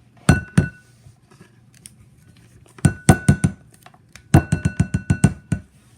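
Hard object knocking against a bowl, each knock leaving a short ringing tone: two knocks near the start, a run of about five quick taps around the middle, and a faster run of about eight taps near the end.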